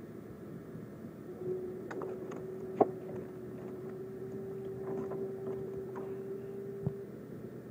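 School bus's diesel engine idling, with a steady hum. Several clicks and one sharp knock sound about three seconds in.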